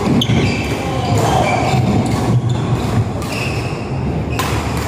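Sounds of a badminton game: scattered sharp knocks of rackets hitting the shuttlecock and players' footwork on the court, with short high squeaks, echoing in a large hall.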